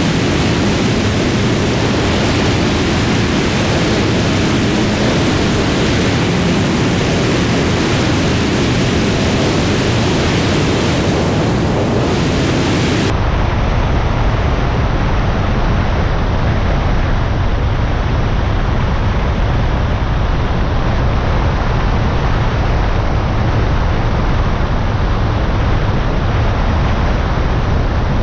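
FK9 ultralight aircraft in flight on approach: a steady rush of airflow and engine noise on the microphone. About halfway through it abruptly turns duller, the high hiss dropping away and a low rumble coming up.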